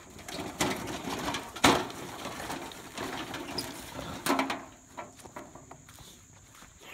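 Old rusted sheet-metal grill being dragged and pushed over dirt and grass, scraping and rattling, with several clanks, the loudest about a second and a half in. The noise dies down about four and a half seconds in.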